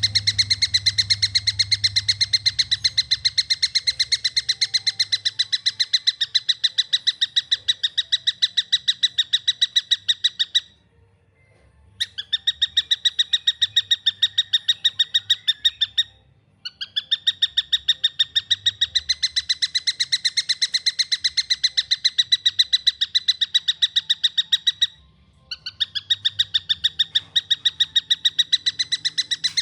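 Young tengkek buto, a kingfisher, calling in long runs of rapid, closely spaced sharp notes, broken by three short pauses.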